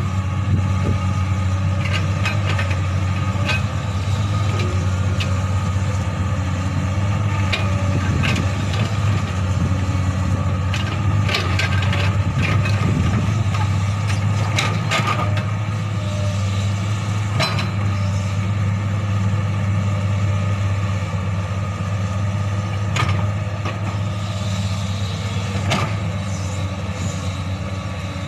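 Komatsu PC200 hydraulic excavator's diesel engine running steadily as it digs, with scattered sharp knocks and clanks from the working bucket and arm.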